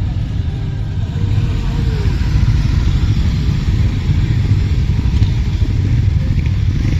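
A group of motorcycles riding slowly past at close range, their engines giving a steady low rumble that grows louder about a second in as the nearest bikes go by.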